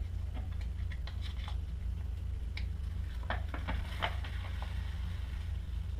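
Paper strips crackling and rustling in scattered little clicks as they are pressed onto and peeled off the tacky glue of a climbing skin, over a steady low hum.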